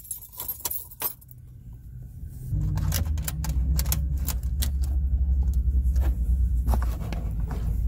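Keys jangling on a key ring at the ignition, with sharp clicks as a car stereo's faceplate is snapped on. About two and a half seconds in, a loud steady low hum starts and keeps going.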